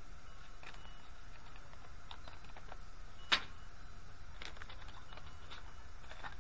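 Light clicks and rustling of soft-plastic baits, jig heads and a plastic bait packet being handled on a glass tabletop, with one sharper click about halfway through, over steady low background noise.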